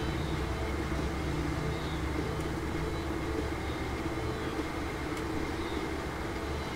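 Steady low mechanical hum of background room noise, with a couple of faint light ticks.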